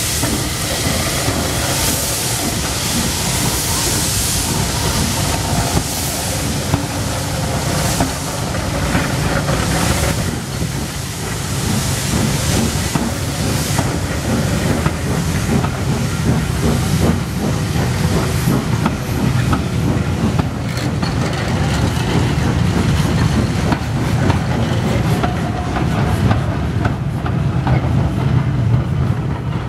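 Maunsell S15 class 4-6-0 steam locomotive No. 847 passing close by with its cylinder drain cocks open, hissing loudly for the first ten seconds or so. Its coaches then roll past with a steady rumble and rail clatter, which grows heavier near the end as a second steam locomotive at the rear of the train goes by.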